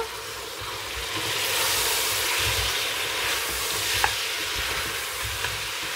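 Boiled chicken and lamb pieces sizzling as they sauté in hot oil and onion-spice masala in a steel pot, stirred with a wooden spatula that scrapes and knocks against the pot. The sizzle swells about a second in and stays steady after.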